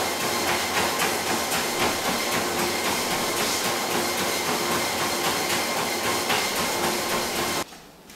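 Motorized treadmill running with a large dog walking on the belt: a steady motor hum and belt hiss with rapid, even ticking. It cuts off suddenly near the end.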